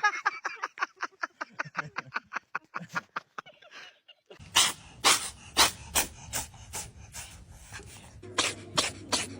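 A cat sneezing again and again. A fast run of short, sharp sneezes fades out over the first three seconds or so. After a short pause comes a slower series of louder sneezes, about two a second, with another quick cluster near the end.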